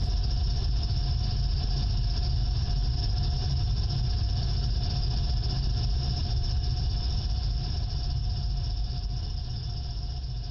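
An engine running steadily with a low rumble, beginning to fade away in the last couple of seconds.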